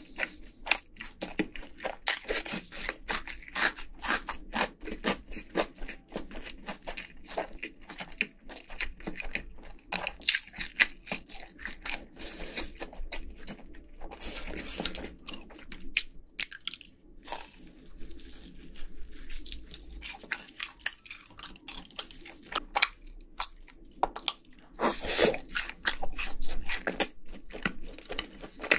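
Close-miked crunching and chewing of crispy fried chicken: many crisp bites and chews in quick succession with wet mouth sounds.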